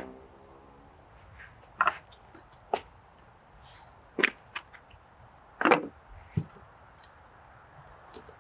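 A series of about six sharp, irregularly spaced cracks and crunches.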